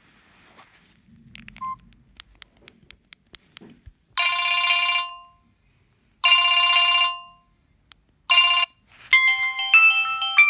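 Samsung GT-E1170 mobile phone playing ringtones through its small speaker. First come a few faint clicks and a short beep, then a ringing chord held about a second twice and once more briefly. About nine seconds in, a ringtone melody of quick notes starts.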